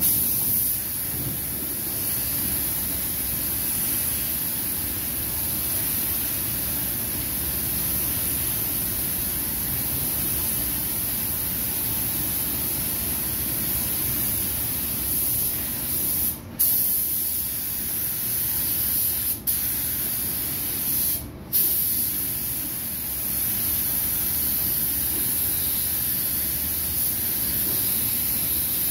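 Gravity-feed paint spray gun hissing steadily as it sprays a car bumper, with the trigger let off briefly three times near the middle.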